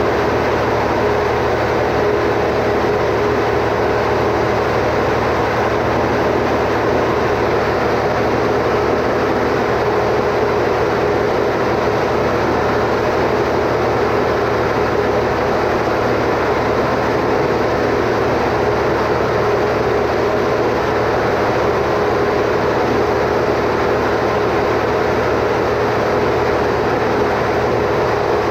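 Standby generator's engine running steadily at constant speed, a continuous drone with a steady hum.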